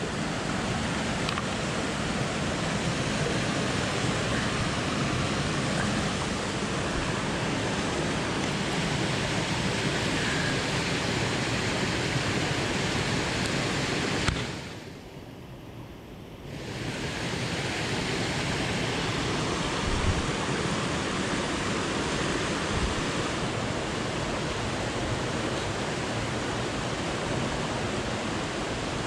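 Steady rush of a mountain creek's flowing water. Midway it drops and goes muffled for about two seconds, then returns.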